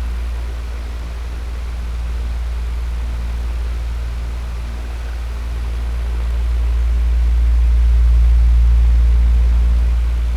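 Electric fan running steadily: an even rush of air over a strong low motor hum. The level swells and fades slowly, lowest about a second in and highest near the end.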